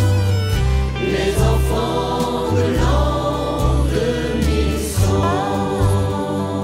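Music: a choir singing over a band with deep bass notes; about five seconds in, a dobro played with a steel slide bar glides in.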